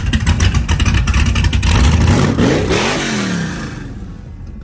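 Cammed LS-swapped V8 in a G-body Monte Carlo running loud with a choppy, lumpy exhaust note, its pitch swinging up and down about two and a half seconds in, then fading away steadily over the last second and a half.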